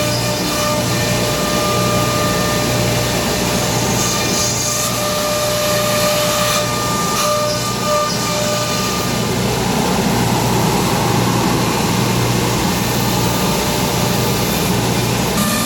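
CNC router running: a steady high whine over a continuous machining noise.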